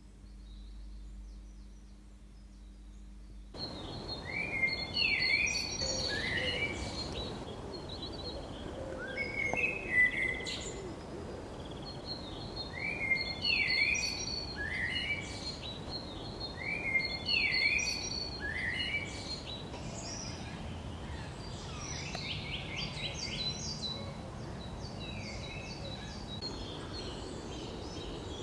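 Birdsong over a steady background hiss. After a quiet start, a bird begins about three and a half seconds in, repeating a short phrase of falling whistled notes every four seconds or so, with a quicker run of notes near the end.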